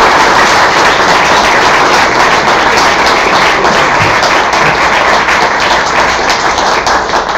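Audience and panel applauding, a loud, steady clapping from many hands.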